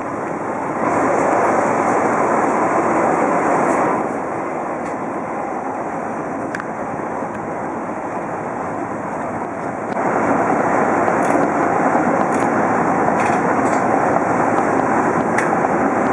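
Osaka Metro Tanimachi Line 22 series subway train running, a steady rushing running noise with no horn sounding. It grows louder about a second in, drops back about four seconds in, and rises again about ten seconds in.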